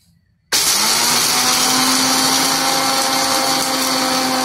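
Prestige PEX 1.0 350-watt bullet blender switched on about half a second in, its motor spinning up and then running steadily at full speed while the blade grinds roasted gram and cardamom to powder in the spice jar.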